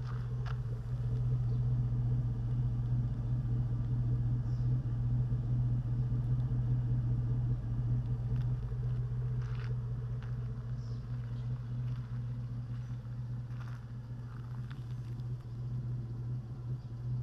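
2004 Chevrolet Silverado's 4.8-litre V8 idling steadily, heard at the exhaust tip through a Borla XR-1 single round muffler and a 3-inch tailpipe.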